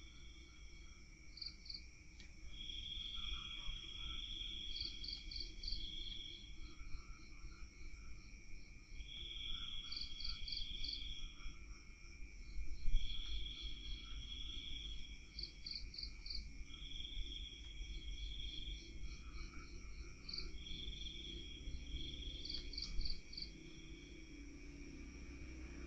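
Night insects calling, crickets and similar: a steady high drone with groups of quick chirps and longer trills that recur every two to three seconds, over a low rumble. A brief soft bump about halfway through.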